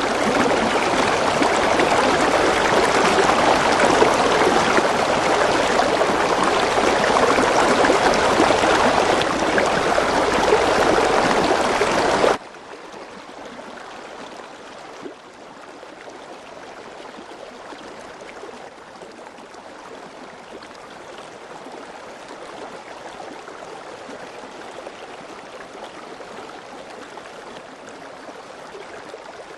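Steady heavy rain, a dense even hiss of falling water, that cuts off suddenly about twelve seconds in and gives way to a much quieter, lighter rain sound.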